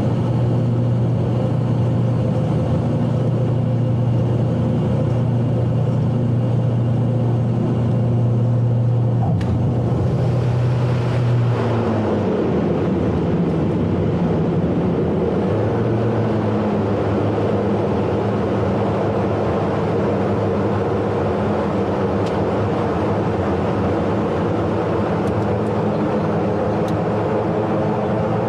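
Embraer Xingu's twin PT6A turboprop engines and propellers droning inside the cockpit during the landing rollout. About ten to twelve seconds in, the pitch falls as power comes back, then it settles into a steady lower drone as the aircraft slows.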